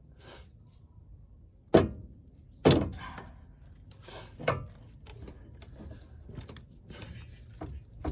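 Hammer blows on a 1999 Chevrolet Tahoe's steering linkage, struck to shake a stuck tie rod end loose by vibration. There are two hard metallic strikes about a second apart, a couple of seconds in, then lighter knocks.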